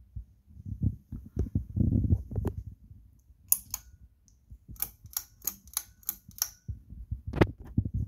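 Low handling thumps and rustling, then a run of sharp clicks, roughly three a second, from about halfway through, with one louder click near the end.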